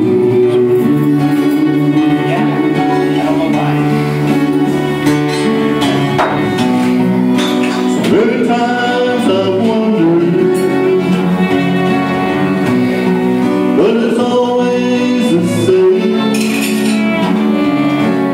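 Live acoustic band playing a slow song: fiddle with sliding notes, upright bass and strummed acoustic guitar, with a man singing.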